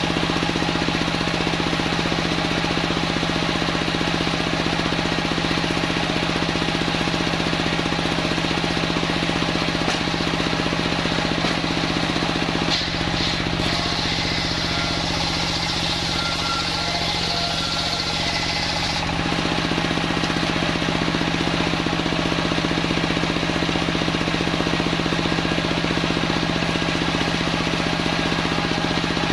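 Homemade table circular saw (serkel) running steadily with a constant hum. Its sound shifts for several seconds in the middle, then returns to the same steady note.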